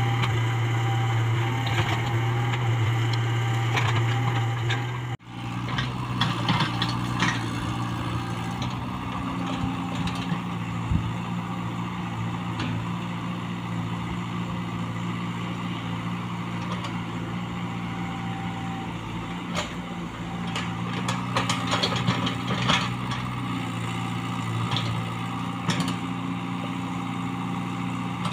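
Komatsu PC75UU mini excavator's diesel engine running steadily under hydraulic load as it digs, with scattered knocks and clanks from the bucket and arm working the soil. The sound drops out briefly about five seconds in, then carries on.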